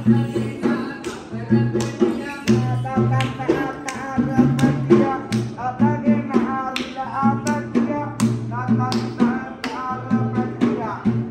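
Sri Lankan devil-dance drum music: drums beating a steady, fast rhythm with a wavering melody line over them.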